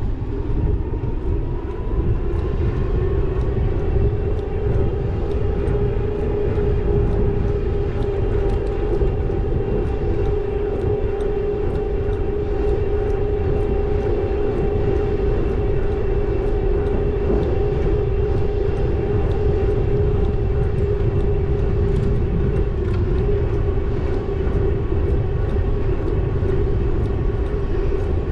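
E-bike motor whining at a steady pitch under way, its pitch climbing a little in the first second as the bike speeds up, over a low rumble of wind on the microphone and tyres on the path.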